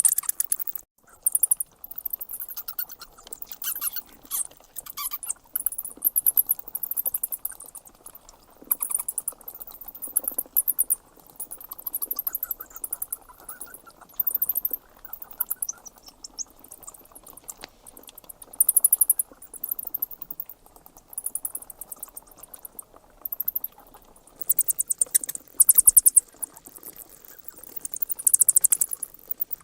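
Bats squeaking: rapid trains of high-pitched chirps and clicks in clusters of a second or two, broken by short gaps.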